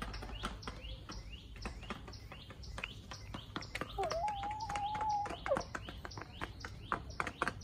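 Backyard chickens feeding, with quick sharp chirps and clicks throughout. About four seconds in, one chicken gives a long, level drawn-out call lasting about a second and a half, which falls away at the end.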